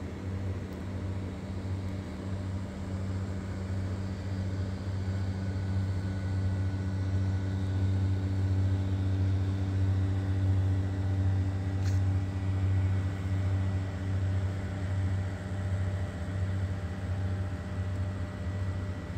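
Steady low electric hum of the blower fans that keep lawn inflatables up, running continuously and growing somewhat louder midway.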